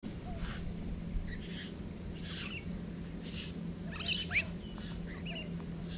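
Wild birds feeding on a lawn give scattered short chirps and calls, with one louder rising call about four seconds in. A steady high-pitched insect drone runs underneath.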